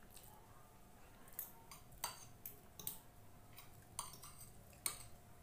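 Spoon and fork clinking and scraping against a plate while eating rice and fish: faint, scattered clinks, a little louder about two seconds in and again near the end.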